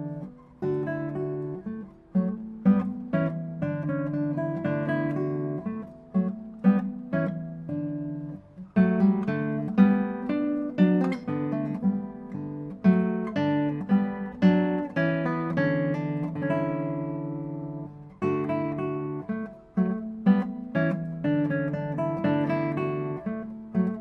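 Background music: an acoustic guitar playing plucked and strummed chords.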